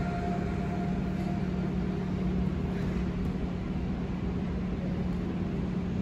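Background music in a sparse passage: a steady low droning note under a soft haze.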